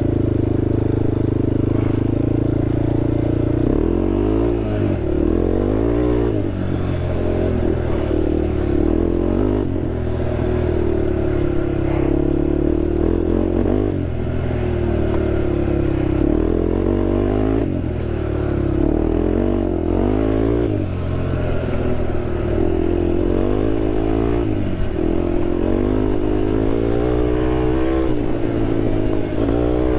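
Honda TRX sport quad's engine running under way off-road. It holds steady for the first few seconds, then revs up and drops back over and over as the throttle is worked.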